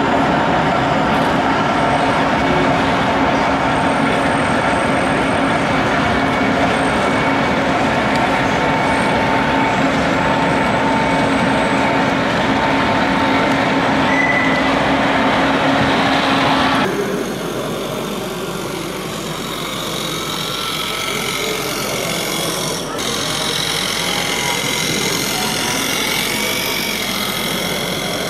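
Radio-controlled scale model Liebherr crawler dozer running as it drives onto a trailer ramp, a steady mechanical hum with a few held tones over it. About 17 seconds in the sound cuts abruptly to a quieter mix of another model machine and voices in the background.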